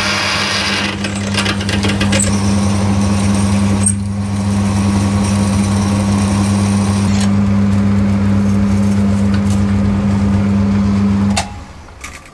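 Boxford metal lathe running with a twist drill in the tailstock chuck boring into the spinning workpiece: a steady motor hum under a scratchy cutting noise as swarf comes off. The motor is switched off near the end and the hum stops abruptly.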